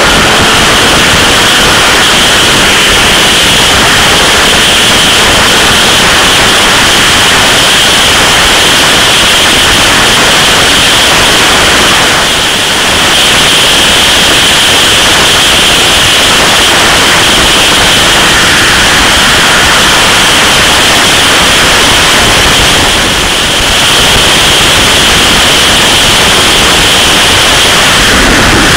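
Loud, steady wind noise buffeting the microphone of a camera on a motorcycle riding at motorway speed, a constant hiss with no engine note standing out. It eases briefly twice.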